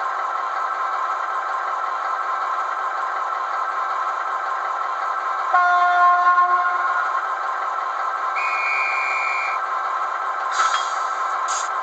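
Diesel engine sound from the DCC sound decoder of a Roco model DB class 298 shunting locomotive, played through its small speaker and running steadily. About halfway in, the horn sounds for about a second, a high whistle follows a moment later, and a few short clanks come near the end.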